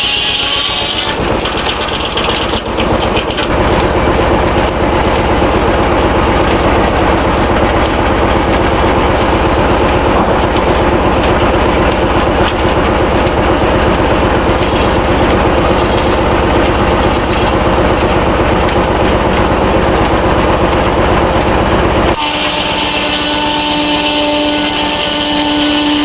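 Large circular sawmill blade cutting lengthwise through a log as the carriage feeds it, a dense, rough noise, which gives way abruptly about four seconds before the end to the blade spinning free with a steady whine.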